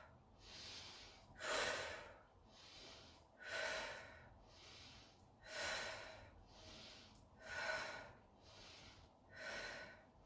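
A woman breathing deeply and audibly in a steady rhythm, a stronger breath about every two seconds alternating with a softer one: paced in-and-out breaths timed to fast arm raises and lowerings.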